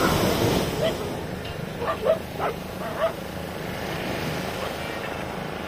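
A dog barking, several short barks from about one to three seconds in, over a steady rush of surf and wind.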